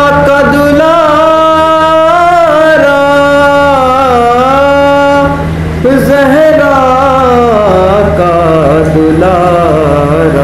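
A man's solo voice chanting a soz, a mourning lament, into a microphone: two long drawn-out melodic phrases of held, wavering notes, with a short breath between them about halfway through. A steady low hum lies beneath the voice.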